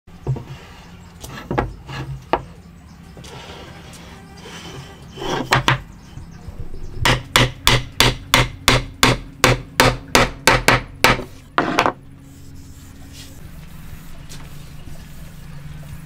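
Hammer strikes on wood: a few scattered knocks, then a steady run of about fifteen blows, roughly three a second, and one last knock.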